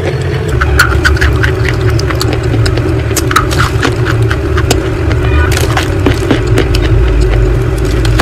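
Close-up biting and chewing of school chalk: many sharp, irregular crunches and crumbly clicks over a steady low drone.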